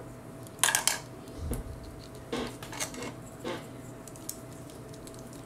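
Small hard plastic action-figure armor pieces clicking and rattling as they are handled, in several short bursts, the loudest about a second in and a last single tick past the middle.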